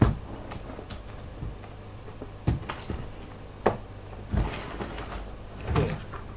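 Scattered clicks and knocks of hands handling a laptop's plastic case and parts, about half a dozen spread unevenly, over a low steady hum.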